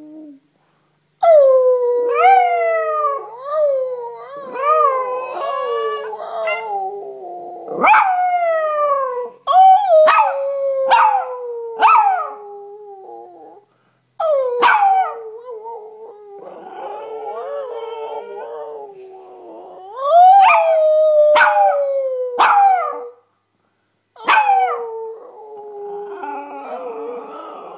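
A Chihuahua mix dog howling along with a man who is howling with it. Long howls slide slowly down in pitch and are broken by short, sharp cries that leap up and fall away, with a few brief pauses for breath.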